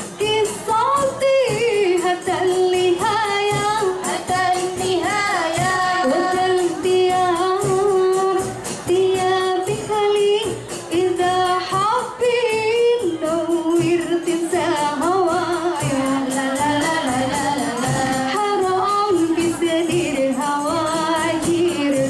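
A woman sings solo into a microphone in a devotional style, with long held notes that bend and waver, over rebana frame drums and jingles beaten steadily throughout.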